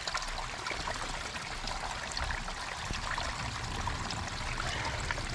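Small stream of water trickling steadily, running off the land.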